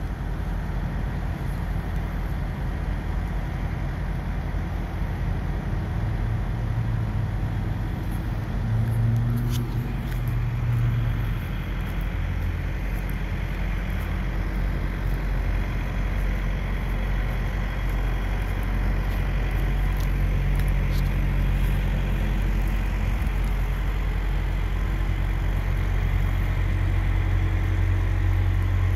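Steady low rumble of a heavy vehicle engine running, with a deep hum that swells for a few seconds near the middle and a few faint clicks.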